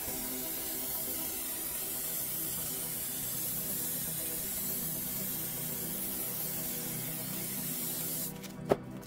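Aerosol spray paint can spraying in a steady hiss, which cuts off near the end and is followed by a single sharp click.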